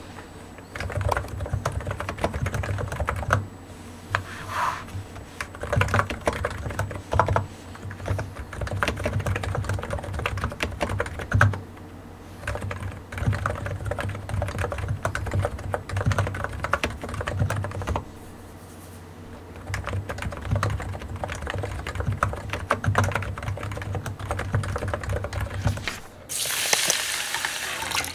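Typing on a computer keyboard: runs of rapid key clicks broken by short pauses. A rushing hiss comes in near the end.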